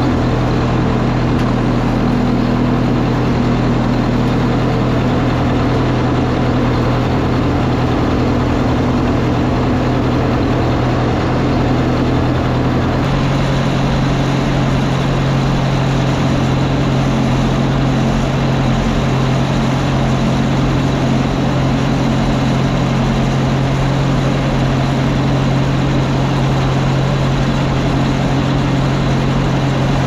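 Old farm tractor's engine running steadily while towing a hay rake through the windrows. Its tone shifts slightly higher about 13 seconds in.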